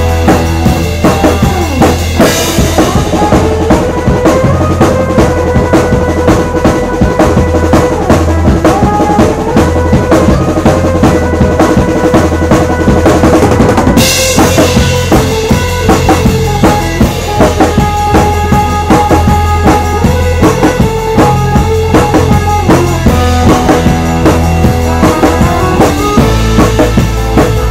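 A live rock band playing an instrumental with electric guitar, electric bass, keyboards and a drum kit keeping a steady beat. The cymbals get louder about two seconds in and again about halfway through.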